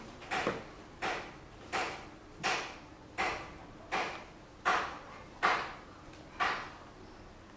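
Repeated swishing strokes, about one every three-quarters of a second, stopping near the end.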